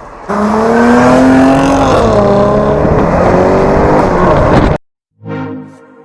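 Mercedes-Benz SL550's 5.5-litre V8 accelerating hard from a standstill. The engine note rises, drops about two seconds in at an upshift, then climbs again before cutting off abruptly near the end.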